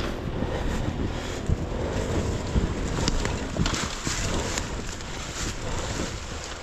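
Wind buffeting the microphone over an enduro motorcycle's engine running, with scattered short knocks.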